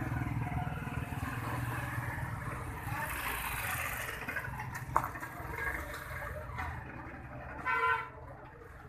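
Outdoor traffic background with a steady low engine rumble, a sharp click about five seconds in, and a short, loud pitched toot near the end.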